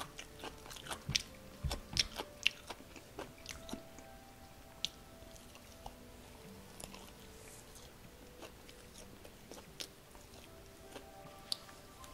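Close-up eating sounds of a person biting and chewing crispy Korean fried chicken: crunches and mouth clicks, thickest in the first few seconds, then thinning to occasional clicks.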